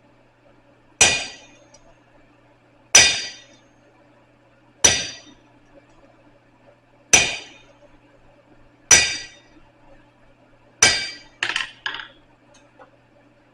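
Blacksmith's hammer striking steel on an anvil: six slow, ringing blows about two seconds apart, then two lighter quick taps near the end.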